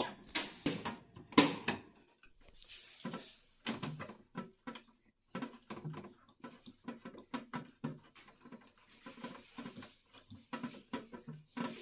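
Hands working on plastic and metal parts of a refrigerator's thermostat fitting, making irregular clicks, knocks and rattles. A few sharp knocks come in the first two seconds, then lighter tapping and handling sounds.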